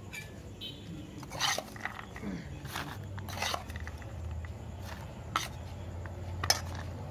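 Steel spoon clinking and scraping against an aluminium bowl as aloo kabli is stirred and scooped into a paper cone, with about five sharp clinks. A low steady hum comes in about halfway through.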